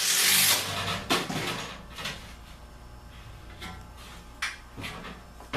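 Short, loud burst from a cordless Makita impact driver sinking a screw into the furnace's sheet metal, followed by scattered knocks and clicks of handling the metal, the driver and screws. The screw is going through two layers of metal and is hard to drive.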